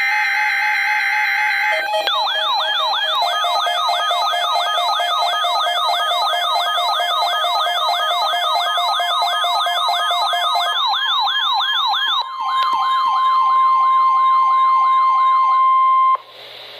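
NOAA Weather Radio required weekly test alert: the end of the SAME header data tones, then a siren-like alert sweeping up and down about three times a second over the steady 1050 Hz warning alarm tone. The sweeping fades a little in the last few seconds while the steady tone grows louder, and both cut off abruptly near the end.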